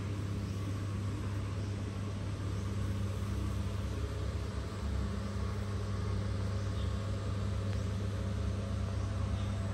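Steady low hum over a constant hiss, unchanging in pitch throughout.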